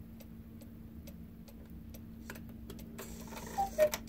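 Weight-driven carved Black Forest cuckoo clock ticking steadily, its pendulum just set swinging. A brief louder clatter comes about three and a half seconds in.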